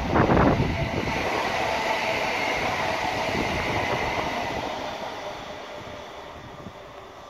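Class 365 electric multiple unit passing at speed and going away: a steady rush of wheel and rail noise that fades smoothly over the last few seconds as the tail of the train recedes. Some wind buffets the microphone at the start.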